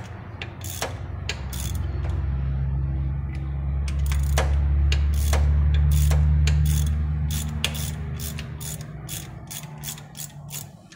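Hand ratchet clicking in a series of sharp clicks, quicker near the end, as it turns the forcing screw of a harmonic balancer puller drawing the balancer off the crankshaft nose. A steady low hum runs underneath and swells in the middle.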